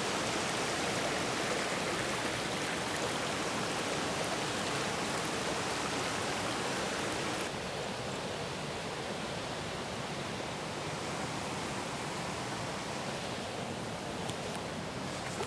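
Rushing river water: a steady, even rush of noise. About halfway through it turns slightly quieter and duller.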